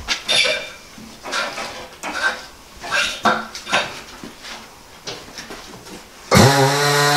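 Tire changer mounting a large all-terrain tire on a wheel: irregular metal clanks and scrapes as the tire and tools are worked against the machine. About six seconds in, the machine's turntable motor starts with a loud, steady hum.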